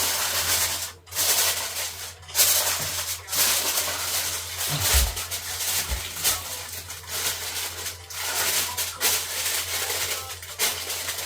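Crinkling and rustling of a bowl of marinating chicken being covered with wrap, in a dense crackly run that keeps going with small pauses.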